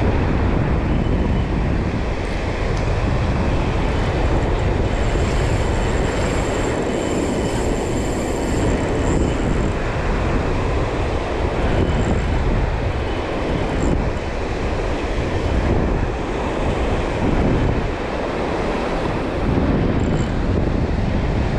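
Steady roar of surf breaking on the beach, with wind buffeting the microphone.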